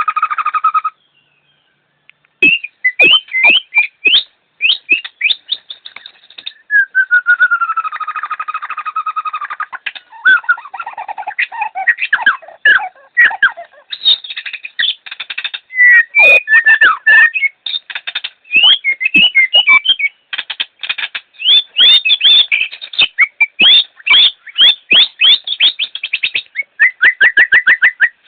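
A songbird singing a loud, varied song of rapid chirps, whistled slurs and trills, broken by short pauses. A drawn-out falling whistle comes about seven seconds in, and a fast, even trill near the end.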